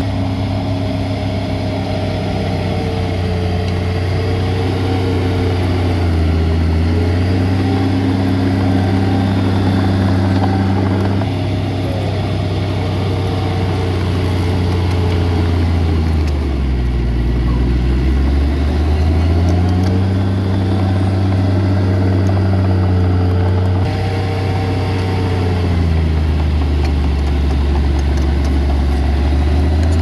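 Heavy diesel engine of earthmoving machinery running under work, its engine speed sagging and picking up again several times: about six seconds in, for a few seconds past the middle, and again near the end.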